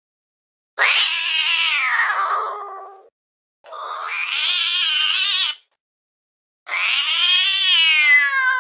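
Domestic cat giving three long, drawn-out meows, each about two seconds, with short silent gaps between. The pitch wavers through each call, and the first falls away as it fades.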